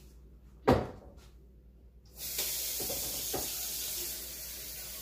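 A clunk of a pot or crock about a second in, then a kitchen tap running water in a steady hiss from about two seconds in, with a couple of light knocks: the slow cooker's crock of pinto beans being filled with water.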